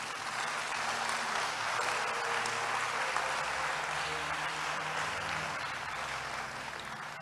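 A church congregation applauding, many hands clapping together; it swells in the first second and dies down near the end.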